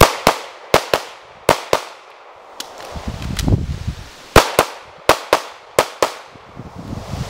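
Sig Sauer P226 9mm pistol fired in six fast pairs of shots: three pairs, a pause of about two and a half seconds for a magazine change with faint clicks, then three more pairs.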